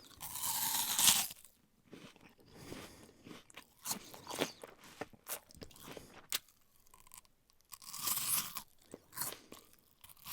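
A person eating a crisp apple, crunching and chewing it close up. There are two longer, louder crunches, one at the start and one about eight seconds in, with shorter chewing crunches and clicks between them.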